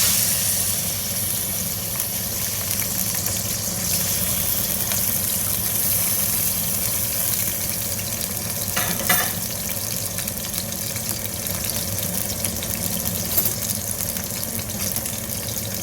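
Boneless chicken strips sizzling in hot oil in a pan as they are sautéed: a steady sizzle that starts suddenly as the chicken goes in, with a couple of light knocks from the stirring spoon about halfway through.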